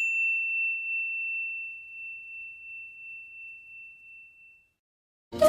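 A single high, pure bell-like ding, struck just before, rings out and fades slowly with a slight wavering over about four seconds. It opens a mobile ringtone, and after a short silence flute-led Indian devotional music starts right at the end.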